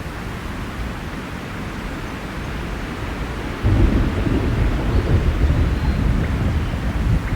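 Steady rain hiss with a low thunder rumble that sets in suddenly about halfway through and keeps rolling.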